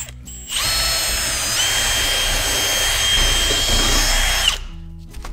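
Milwaukee cordless drill spinning a small wire wheel inside a rusty mower roller end, scouring out rust and burrs. It starts about half a second in, runs steadily for about four seconds as a motor whine over a harsh scraping hiss, and then stops.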